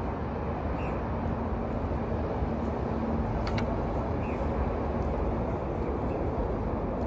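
Steady low outdoor rumble with a few faint short chirps, and a brief sharp click about three and a half seconds in.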